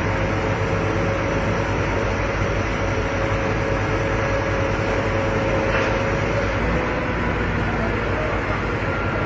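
Heavy machine engine running steadily under load: a dense, even rumble with a whine that fades out about six and a half seconds in.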